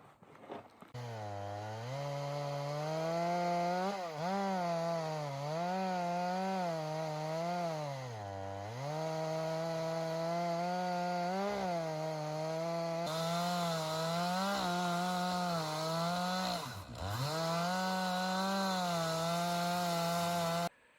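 Chainsaw running at high revs while ripping a log lengthwise in a chainsaw mill. Its pitch dips repeatedly as the chain bogs in the cut and recovers. It starts and stops abruptly.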